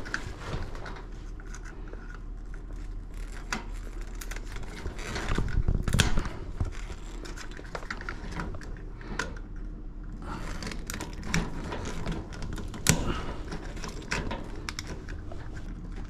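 Small clicks, rattles and scrapes of hand work on a plastic motion-sensor light switch with pliers as it is trimmed down to fit its metal box and cover. There is a louder patch of handling about five to six seconds in, and sharp clicks near six and thirteen seconds.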